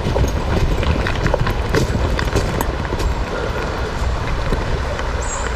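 Footsteps crunching through dry fallen leaves at a walking pace, with a low rumble of wind on the microphone.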